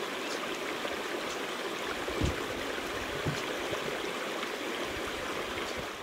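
Shallow river water running over a rocky bar, a steady rushing, with two soft low knocks about two and three seconds in.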